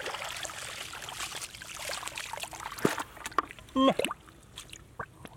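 Hands groping and splashing in shallow muddy water among grass, with water trickling and sloshing. A few sharp splashes come about three to four seconds in, the loudest with a short pitched squeak.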